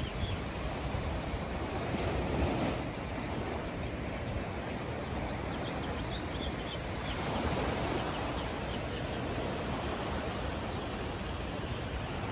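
Ocean surf washing in, a steady rush that swells a little about two seconds and again about seven seconds in.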